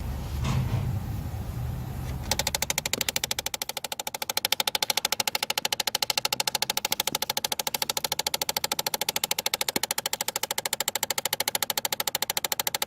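Driver-side HVAC blend door (air door) actuator of a 2008 Chevy Impala ticking rapidly and steadily, starting about two seconds in and not letting up. The continuous ticking is the sign of a failing actuator, stuck on full cold, whose plastic gears wear out over time.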